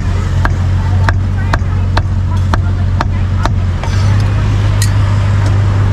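Cleaver chopping grilled beef on a round chopping block, sharp knocks about two a second that stop about three and a half seconds in, over a loud steady low hum.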